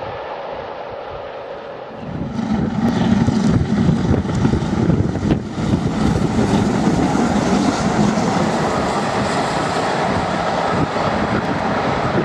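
Steam locomotive hauling an express passenger train at speed: a fainter rushing sound at first, then from about two seconds in the loud, dense noise of the locomotive's exhaust and the running train as it comes on.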